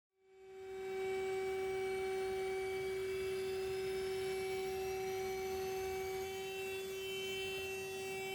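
Steady electrical hum in the Eurofighter's cockpit with a faint high turbine whine slowly rising in pitch, typical of the jet's systems powered up while its engines spool up before taxi. It fades in about a second in.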